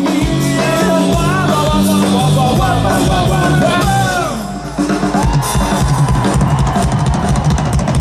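A live rock band plays through a large outdoor PA: drum kit and guitars under a bending melody line. The music drops briefly about four and a half seconds in, then the drums carry on.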